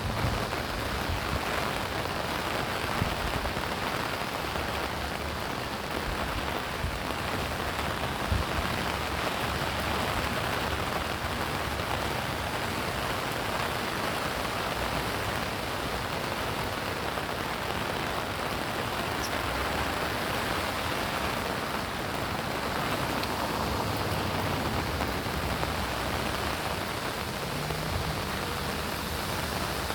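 Steady rain falling and pattering on surfaces, with a few soft low thumps.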